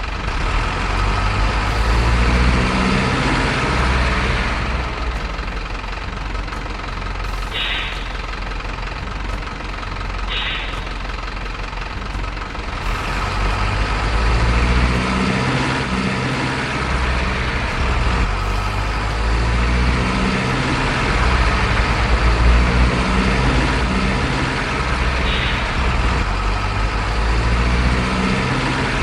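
Heavy diesel truck engines running, their rumble swelling and fading as trucks pass, with a few short sharp bursts, about a second or two apart early on and once more near the end.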